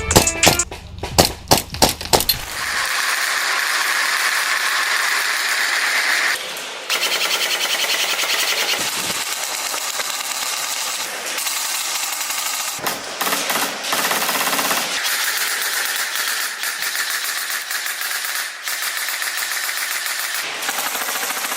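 Airsoft guns firing on full auto in long, rapid bursts with brief pauses between them, after a music track with drum hits ends in the first couple of seconds.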